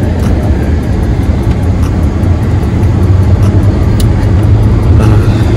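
Steady low rumble of road and engine noise inside a moving car's cabin, with a single short click about four seconds in.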